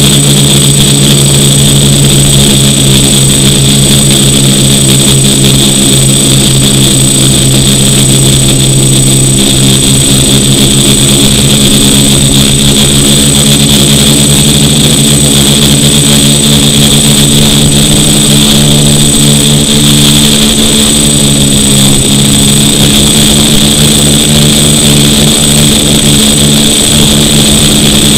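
Loud, steady buzz of a DJI F450 quadcopter's four brushless motors and propellers in flight, picked up by a camera fixed to the drone's frame. The pitch shifts a little now and then as the motor speeds change.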